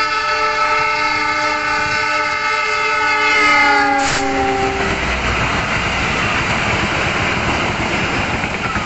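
Air horn of a KAI CC 206 diesel-electric locomotive sounding one long chord of several tones for about five seconds, the pitch dropping near the end as the locomotive passes close by. Then the steady rumble of the passenger coaches' wheels on the rails as they run past.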